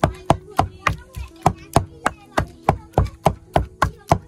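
Wooden pestle pounding boiled papaya against the bottom of a wok, a steady run of sharp thuds at about three to four strokes a second, mashing it smooth.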